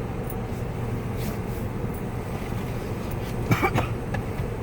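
Car engine idling, a steady low hum heard from inside the cabin. A brief vocal sound comes about three and a half seconds in.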